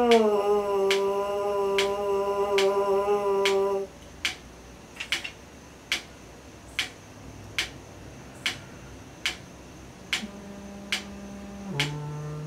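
A trombone mouthpiece buzzed on its own: one held note that stops about four seconds in, over a metronome clicking a little more than once a second. Near the end the trombone itself starts a low held note.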